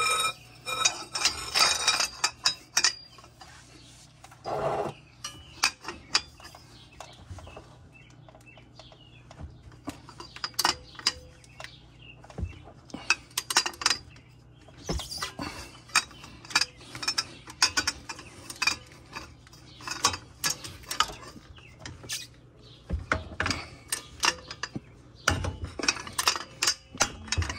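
Metal tool clinks and clicks from a socket and breaker bar, lengthened with a cheater pipe, being fitted and worked on the brake caliper bracket bolts to break them loose. The clicks are irregular and come more thickly in the second half.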